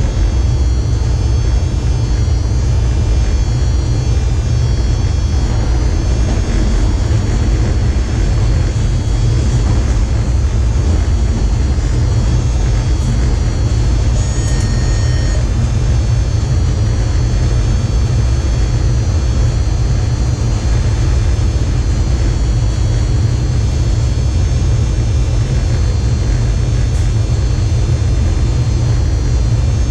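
Electric locomotive running at speed, heard inside the driver's cab: a steady, loud rumble of wheels and running gear on the rails, with several faint, constant high whining tones over it.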